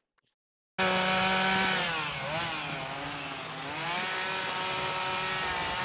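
Chainsaw cutting into a Western red cedar log for carving. The engine starts abruptly about a second in at high revs, its pitch sags for a second or two as the chain loads up in the wood, then climbs back.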